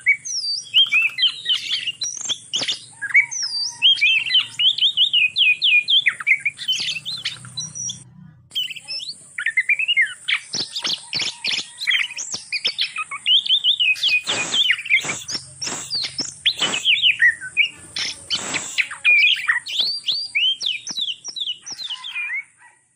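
Breeding pair of Oriental magpie-robins singing a rapid, varied string of whistled notes and glides, the song of birds in mating condition. A few short sharp clicks fall among the notes in the second half.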